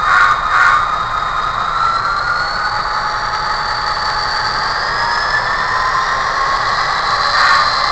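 HO scale model SD40-2 diesel locomotive running slowly: a steady engine-like sound with several whining tones that slowly rise and fall, and short bursts of noise just after the start and again near the end.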